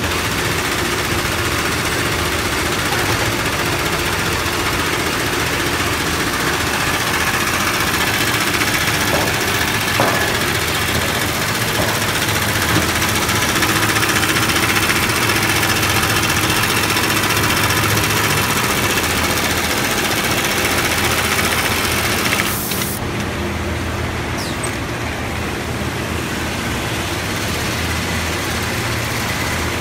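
Keestar LoopSEW65 automatic big-bag loop sewing machine running at speed, stitching a woven polypropylene lift loop onto bag fabric, over a steady low factory-machinery hum. About three quarters of the way through, the higher hiss falls away and the hum carries on.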